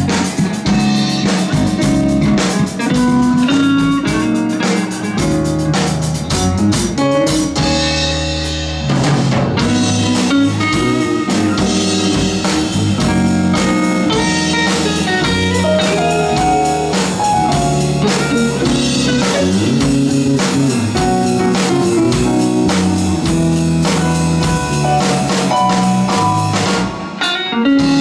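Live band playing: electric guitar leading over bass guitar, keyboard and drum kit. About eight seconds in, the drums drop out for a moment over a held low note, then the full band comes back in.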